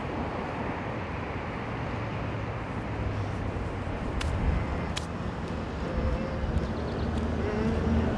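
Steady outdoor background of distant city traffic, a low rumble, with two sharp clicks about halfway through and faint held tones near the end.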